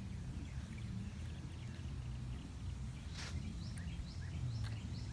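Outdoor ambience: a low steady rumble on the microphone, a brief rustle about three seconds in, and faint short rising bird chirps in the second half.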